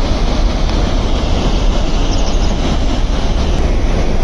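Steady rushing rumble of floodwater released through the dam's opened gates, flowing in the river channel below.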